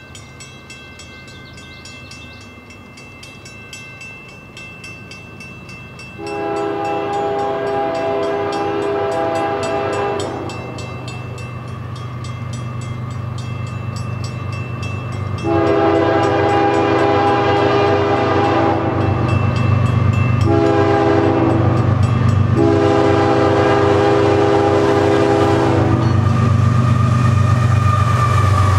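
Diesel freight locomotive horn sounding the grade-crossing signal, two long blasts, a short one and a long one, over the steady ringing of the crossing bell. The low rumble of the locomotives' engines grows louder as they pass near the end.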